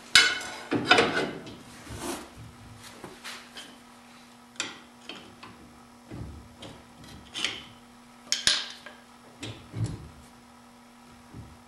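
Scattered metal clicks, knocks and short scrapes as the eye of a new rear leaf spring on a Triumph Spitfire is worked by hand into the suspension's vertical link.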